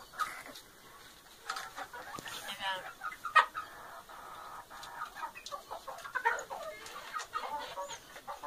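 Domestic chickens clucking, in short scattered calls with a few sharp clicks in between; the loudest comes about three and a half seconds in.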